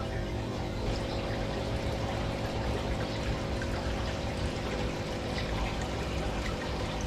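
Aquarium filter water steadily pouring and trickling into the tank, over a steady hum from the pump.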